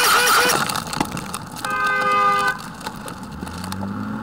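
A loud spray hiss from the glitter bomb's fart-spray canister for the first half second. About two seconds in, a two-tone car horn sounds once for under a second, and a low rising hum follows near the end.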